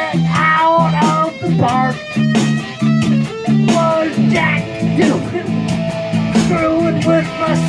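Electric guitar played through an amplifier: a repeating low riff with sliding, bent notes above it, picked in a steady rhythm.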